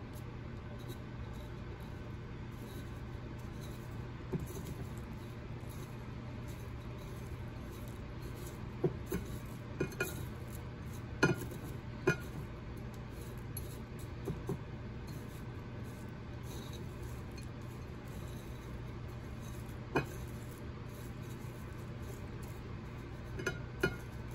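Metal kitchen tongs clinking and tapping against a ceramic bowl while rolling food in crushed chip crumbs, in scattered clicks, several in the middle and two near the end, over a steady low hum.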